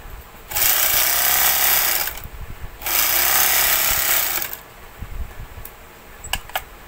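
Portable edging (overlock) machine running in two short bursts of about a second and a half each, stitching along a strip of fabric with its newly replaced needle. A few sharp clicks near the end.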